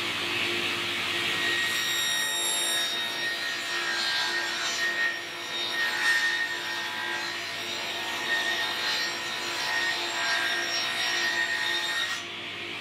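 Table saw ripping a hardwood rail fed along the fence: a steady cutting noise with a thin whine, starting about a second and a half in and ending shortly before the close as the board clears the blade, the saw still running after.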